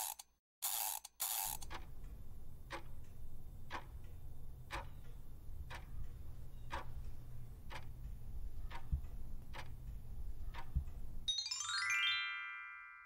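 Quiz countdown sound effects: three quick swishes at the start, then a clock ticking about once a second over a low rumble for roughly ten seconds. Near the end the ticking stops and a rising chime rings out, the signal of the answer reveal.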